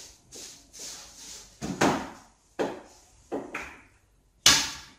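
Several sharp knocks on a pool table, then about four and a half seconds in the loudest sound: a sharp clack of a pool cue striking the cue ball on a shot.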